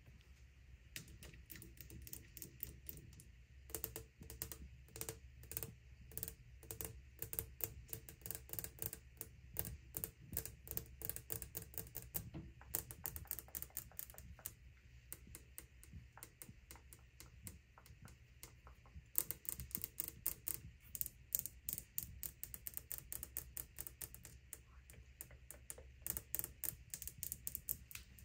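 Long fingernails tapping quickly on a glass cooktop surface: rapid, light clicks in runs with short lulls.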